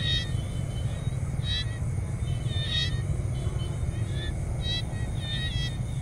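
Tropical jungle ambience: a steady low rumble underneath short, chirping animal calls that repeat about every second and a half.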